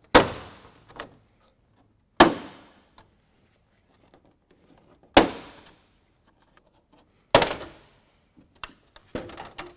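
Plastic retaining clips of a 2011 Toyota Tundra's stock grille snapping loose one by one as the grille is pried away from the metal with a plastic trim tool: four sharp pops two to three seconds apart, then a few lighter clicks near the end.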